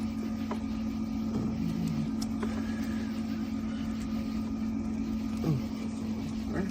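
A steady machine hum, one low drone held at an even pitch, with a few faint clicks over it.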